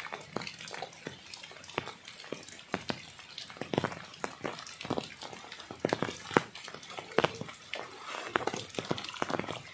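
Rain falling, with many irregular sharp taps of drops striking close to the microphone.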